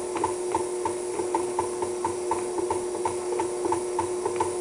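Electric stand mixer running on its lowest speed, its flat beater turning through stiff dough of flour, oats and cranberries: a steady motor hum with a regular clicking, about four to five clicks a second, from the beater going round the bowl.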